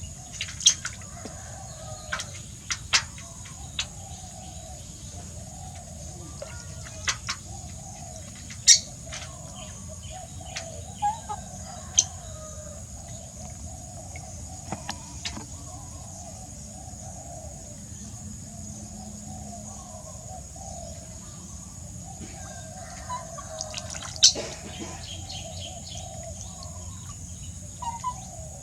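Birds chirping in short, sharp calls scattered across the stretch, over a steady murmur of clucking fowl.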